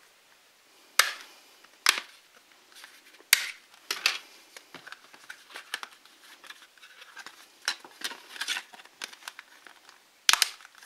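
Plastic clicks and snaps of a Karbonn A19 phone's back cover being prised off and a flip cover's back shell being fitted in its place. There are sharp clicks about one, two, three and four seconds in, lighter clicking and rubbing in the middle, and a loud snap near the end.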